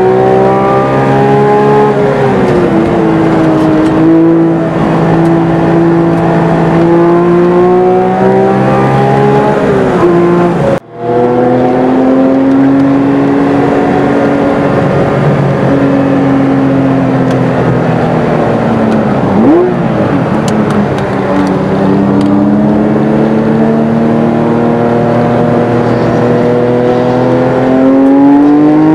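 Porsche GT3 RS flat-six engine heard from inside the cabin at track speed. Its pitch climbs slowly as it pulls and drops at each lift or shift. All sound cuts out for a moment about eleven seconds in.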